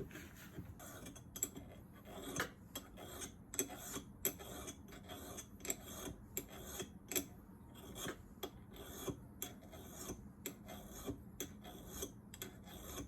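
A hand file scraping in short strokes, roughly two a second, across the steel cutting edge of an old Milwaukee self-feed drill bit, dressing the edge that shaves out the wood.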